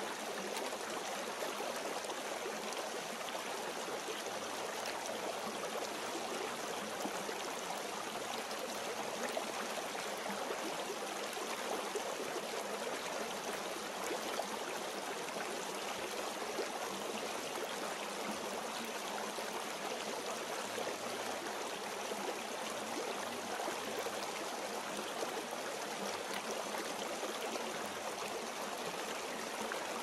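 Flowing water making a steady, even rush.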